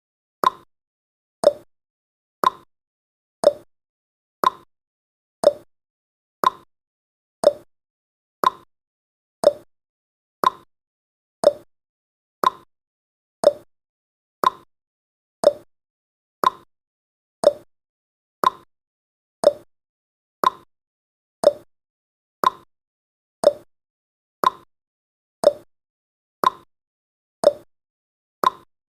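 Clock tick-tock sound effect, one short tick every second, alternating between a higher and a lower tick, marking off the seconds of a countdown timer.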